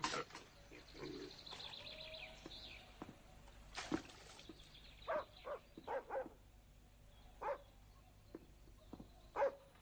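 A dog barking several times in short, separate barks, mostly in the second half.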